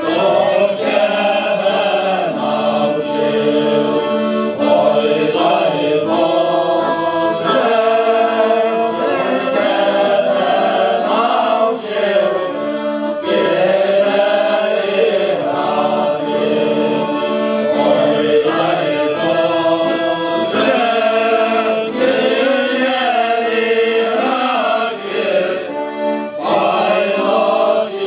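Male folk choir singing a Ukrainian Christmas carol (koliadka) in unison and harmony, accompanied by accordion and violin.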